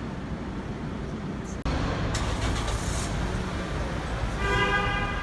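Road traffic running steadily, with a vehicle horn sounding for under a second near the end.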